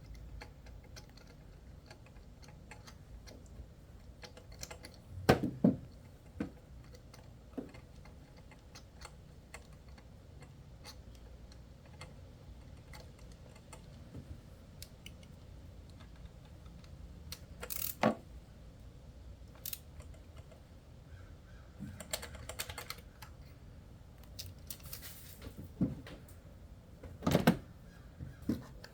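Metal hand tools clicking and clinking while a spark plug is fitted with a spark plug socket and extension, with a few louder knocks scattered through.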